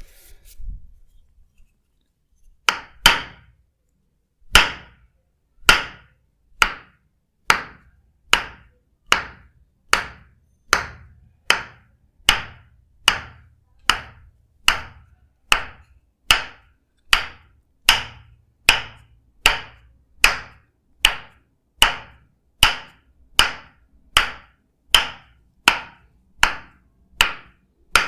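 Percussive massage strikes landing in a steady rhythm, about one a second and gradually quickening a little, each a sharp smack with a short decay. They begin a couple of seconds in.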